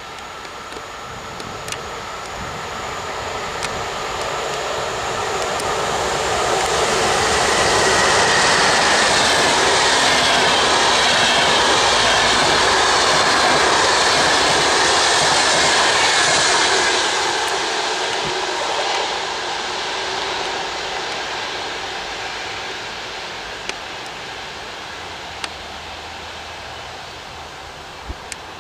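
VR InterCity passenger train hauled by an Sr2 electric locomotive passing at speed: the rushing rumble of wheels on rail builds as it approaches, is loudest for about ten seconds as the double-deck coaches go by, then fades as it moves away.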